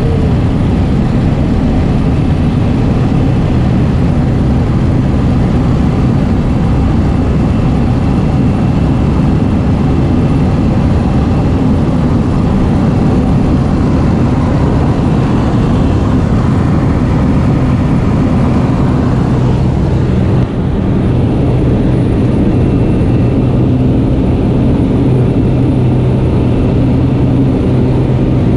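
Single-engine propeller plane's piston engine running steadily at high power through the takeoff roll and climb, with rushing air. The sound dips briefly and turns slightly duller about 20 seconds in.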